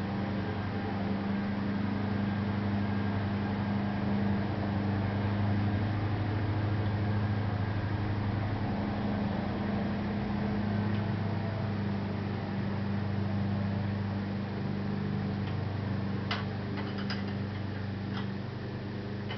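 A steady low mechanical hum, with a few light clicks near the end.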